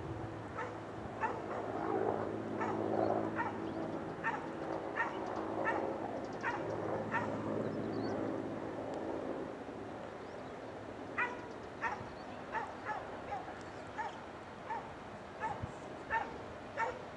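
A dog barking over and over, about one short bark every three-quarters of a second, in two long runs with a pause of a few seconds between them.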